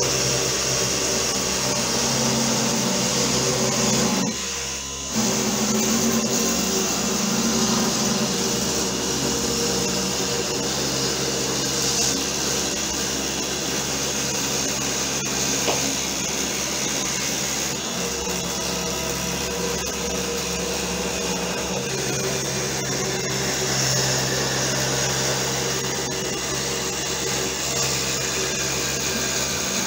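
Homemade CNC router's 775 DC motor spindle running steadily while its cutter mills through plywood. The noise drops briefly about four seconds in.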